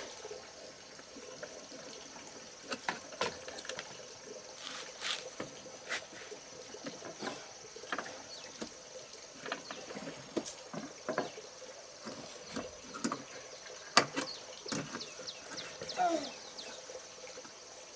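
Steel wire being twisted tight with pliers around a wooden pole against an aluminium frame: scattered small clicks, ticks and scrapes.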